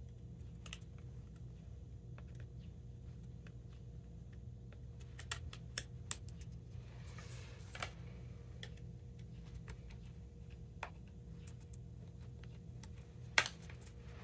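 Light, scattered clicks and taps of a plastic tennis-racquet grommet strip being handled and pressed onto the racquet frame, with a short rustle about halfway and a sharper click near the end.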